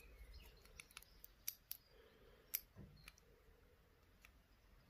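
Faint, irregular small metallic clicks of tweezers picking pins out of a disassembled Assa D12 lock cylinder, about eight or nine ticks.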